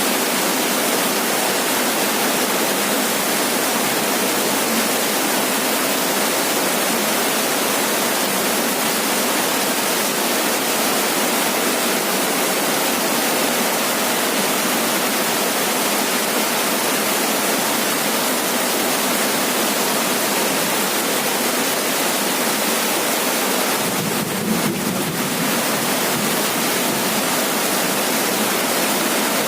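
Heavy rain pounding steadily on a roof, an even dense hiss with no letup. Near the end a brief low rumble swells under the rain for about a second.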